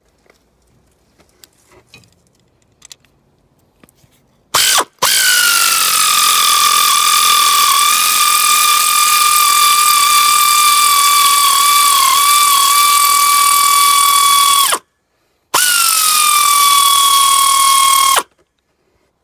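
Pneumatic air ratchet whining at a high, steady pitch as it runs the installer bolt that presses the crank pulley onto the crankshaft. There is a brief blip about four and a half seconds in, then a run of about ten seconds with small dips in pitch. After a short stop comes a last run of a few seconds whose pitch sags as the air compressor runs out of air.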